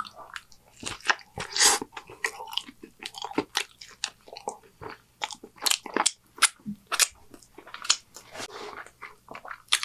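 Close-miked chewing of a mouthful of homemade cheeseburger: irregular wet mouth clicks and smacks.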